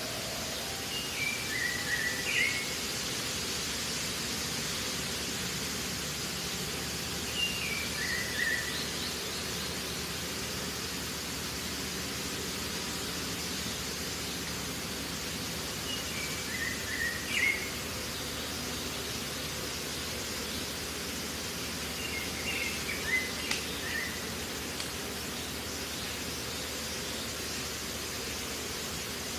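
Steady outdoor background hiss with a bird calling four times, each call a short run of notes stepping down in pitch.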